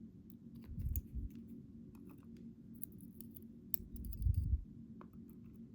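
Small scattered metal clicks and ticks of lock pins and springs being fitted into a padlock core's pin chamber during reassembly, with two dull handling bumps, one about a second in and one about four seconds in.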